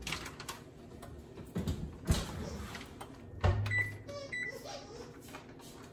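Electric range's control panel beeping as the oven timer is set: two short, high single-pitch beeps about half a second apart, a little after the middle. A couple of sharp knocks come before them.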